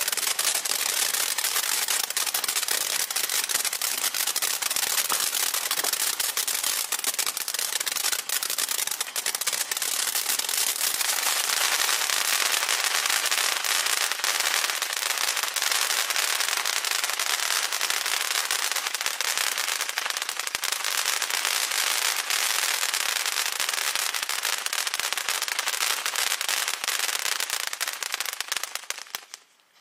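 Ground fountain firework spraying sparks with a continuous dense crackle and hiss, dying out just before the end.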